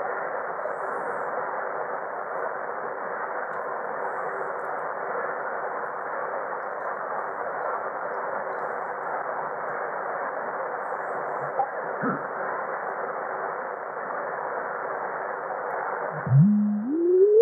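Icom IC-R71E communications receiver giving steady band hiss from its speaker while being tuned across the band. About 16 seconds in the hiss drops away and a heterodyne whistle rises in pitch as the dial crosses a carrier.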